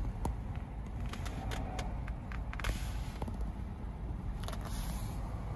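Steady low rumble inside a car's cabin, with a scattering of light, sharp clicks and taps.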